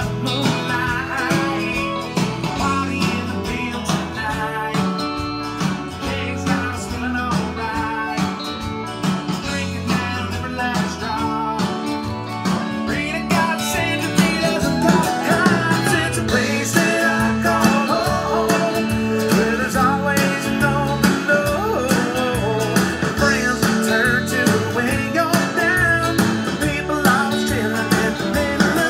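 Country song playing back: guitars with a male voice singing, the final mix being printed in the studio.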